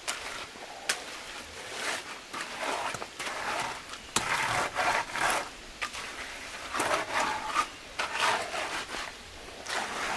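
Wooden hand float rubbing and scraping across the surface of wet concrete in a run of strokes, each about a second long, with a few sharp clicks between them: a fresh slab being smoothed.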